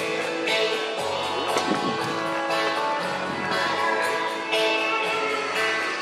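Music with guitar and a steady beat, about one accent a second.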